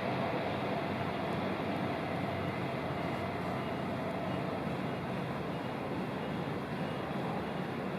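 Train running past on the adjacent railway line: a steady rolling rumble that eases off slowly, with a faint whine that fades out about halfway through.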